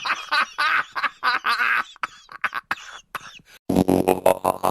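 Cartoon laughter sound effects: a run of quick, choppy laughing bursts, thinning out in the middle. About three and a half seconds in, a louder, buzzing, rattly sound takes over.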